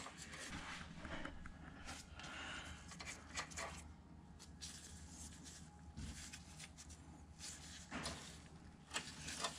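Faint, scattered clicks and light knocks of metal parts and a bolt being handled, over a steady low hum.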